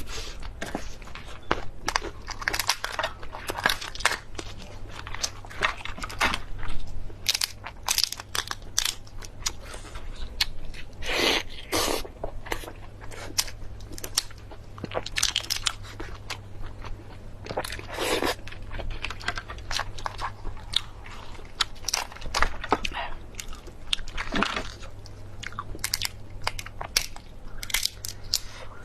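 A person eating fast close to the microphone: irregular crunching bites and chewing, over a steady low hum.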